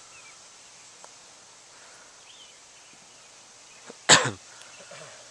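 A person's short vocal sound, a single brief cough-like burst about four seconds in, over a quiet outdoor background.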